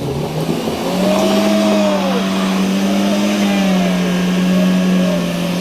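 Vehicle engine running hard at high, steady revs. Its pitch rises about half a second in and holds, with fainter whines gliding up and down above it.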